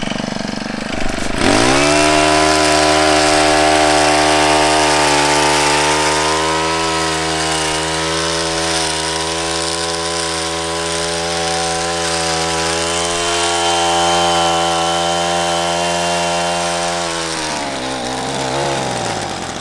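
Petrol hedge trimmer with a small Honda engine throttled up: the engine revs up sharply about a second in, runs steadily at full speed for some fifteen seconds, then drops back toward idle as the trigger is released.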